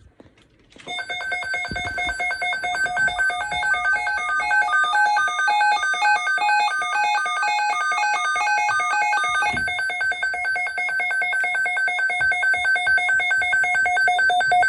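Two phones sounding emergency alert tones at once. One gives a steady tone that pulses rapidly. The other gives a tone stepping back and forth between two pitches, which stops about two-thirds of the way through while the first keeps going.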